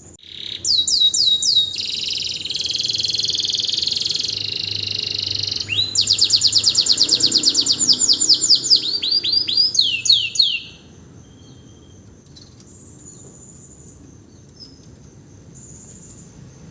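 Canary in full song right after its moult. It sings loud, high, rapid phrases: repeated down-sweeping notes, a buzzy trill, then a fast run of repeated notes, stopping about eleven seconds in.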